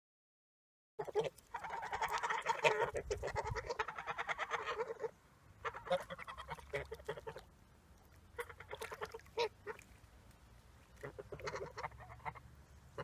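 Ducks quacking. A dense run of rapid quacks starts about a second in and lasts about four seconds, followed by scattered single quacks and short runs.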